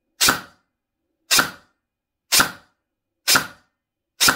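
G&G MXC9 airsoft electric gun (AEG) firing single shots through a chronograph: five sharp reports about a second apart, each quickly dying away.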